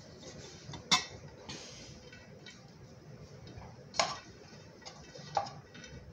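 A few sharp clinks and knocks of a metal cooking pot against a glass baking dish as cooked rice is tipped out of it, about a second in, at four seconds and again near the end.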